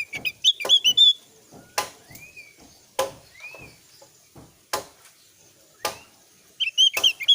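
Javan grey-throated white-eye (opior Jawa) calling: bursts of quick high chirps at the start and again near the end, with single slurred up-and-down whistles between. About five sharp, loud clicks come at intervals.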